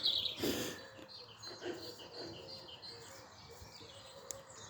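Dawn chorus birdsong: a louder falling call at the very start, then fainter, quick chirps from several birds repeating throughout.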